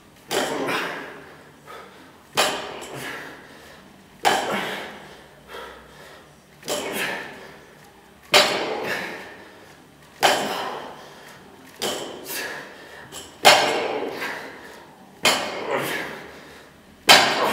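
Olympic barbell loaded with rubber bumper plates (80 kg in all) set down on a wooden lifting platform on each fast deadlift rep: a sharp knock about every two seconds, each followed by a brief decay.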